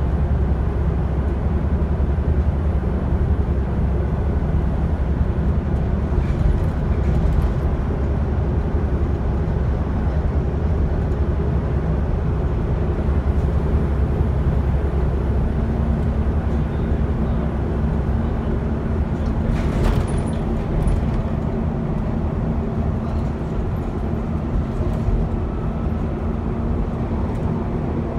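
Interior of an Alexander ALX400 double-decker bus on the move: its Volvo B7TL 7.2-litre diesel engine running under way with road and tyre noise. A steady hum comes in about halfway through, and there is a brief sharp click or rattle about two-thirds of the way in.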